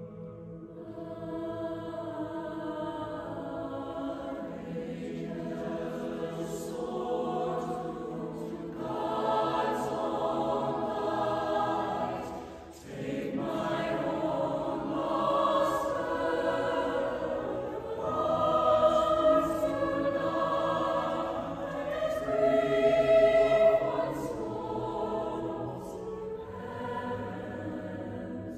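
High school choir singing unaccompanied, slow sustained chords that swell and ease, with a brief break about halfway through and the loudest swells in the second half.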